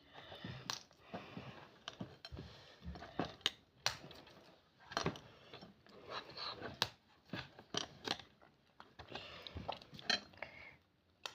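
Faint, irregular snapping, clicking and crackling of hard dalgona honeycomb candy being broken into pieces and handled.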